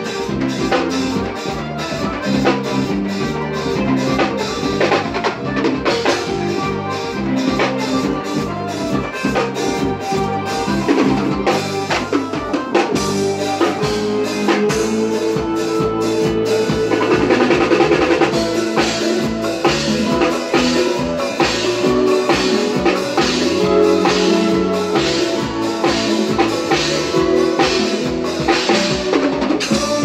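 Live forró band playing: a drum kit beats a steady, fast dance rhythm under sustained accordion lines.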